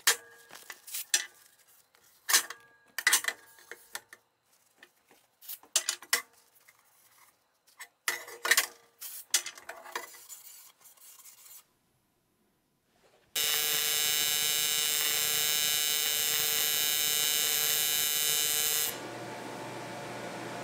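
Aluminum intake tube clinking and knocking against a steel fixture table as it is handled, the knocks ringing briefly. After a short silence, the steady buzz of an AC TIG welding arc on aluminum from a PrimeWeld 325x, dropping to a quieter buzz a few seconds before the end.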